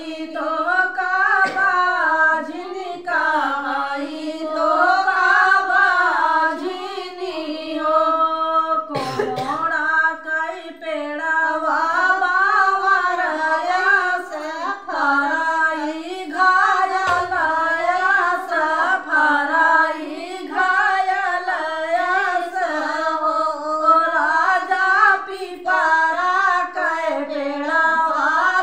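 A woman singing a sohar, a North Indian folk song for a child's birth, unaccompanied, in one continuous wavering melody. A single sharp knock sounds about a third of the way in.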